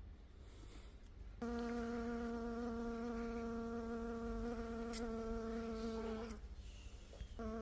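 Honey bee buzzing at a steady pitch, starting about a second and a half in, cutting off suddenly near six seconds and starting again just before the end.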